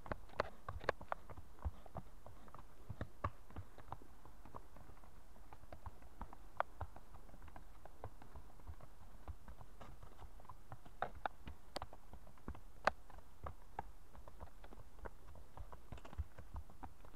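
Horses' hooves at a walk on a dirt forest trail: irregular hoof strikes, a few of them louder knocks.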